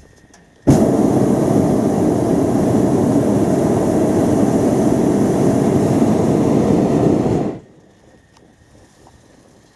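Hot air balloon's propane burner firing in one long blast of about seven seconds, starting sharply just under a second in and cutting off abruptly.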